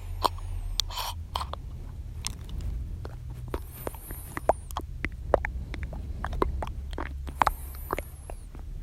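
Close-miked ASMR mouth sounds: many irregular wet clicks and smacks of the lips and tongue, with a couple of brief high squeaky slides, over a steady low hum.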